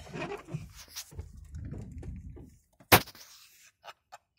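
Low rumbling and rustling inside a car's cabin, with one sharp, loud knock about three seconds in and a few faint clicks after it.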